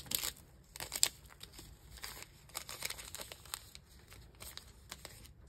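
Wrapped tea sachets crinkling and tapping on a wooden tabletop as they are handled and laid out, in scattered small rustles with a sharper click about a second in.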